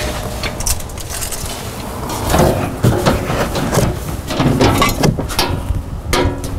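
A metal catalytic-converter shield plate being handled against a car's underside: scattered knocks, clicks and scrapes over a steady low rumble.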